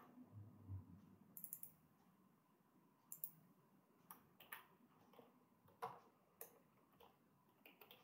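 Faint, sparse clicks of a computer mouse and keyboard: a quick cluster of clicks, then slow, scattered keystrokes as a short name is typed.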